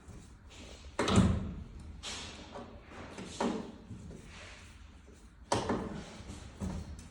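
A series of knocks and clunks from lamp parts being handled during assembly, five in all. The loudest comes about a second in, and another sharp one comes past the middle.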